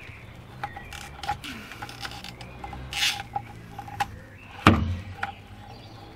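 A socket wrench working on the cylinder-head nuts of a Suzuki RG500 engine: scattered metal clicks and clinks, a short scraping rasp about three seconds in, and one sharp knock, the loudest sound, about three-quarters of the way through.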